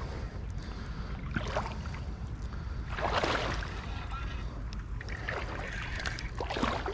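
Wind rumbling on the microphone, with four brief rustles of leafy brush against the rod and clothing, the loudest about three seconds in.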